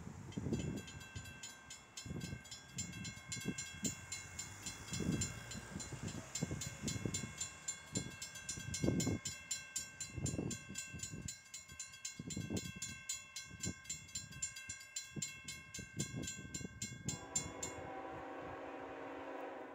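Railroad crossing warning bell ringing rapidly and steadily while the crossing gates lower, then cutting off once the gates are down. Irregular low rumbles sound underneath. Near the end a locomotive horn starts sounding from the approaching train.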